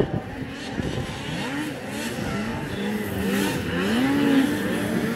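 Several racing snowmobile engines revving up and down, their pitches rising and falling and overlapping, getting louder toward the end.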